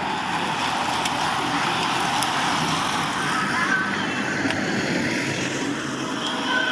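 Steady rushing noise of a bunch of racing bicycles passing close by: tyres on the road and wind on the microphone.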